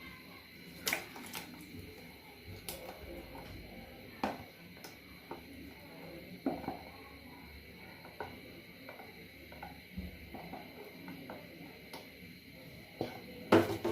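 A spoon knocking and scraping against a cooking pot at irregular intervals as mango puree is worked into hot sugar syrup.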